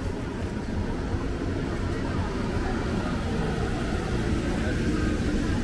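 Busy night-market street ambience: a steady low rumble with faint crowd chatter mixed in.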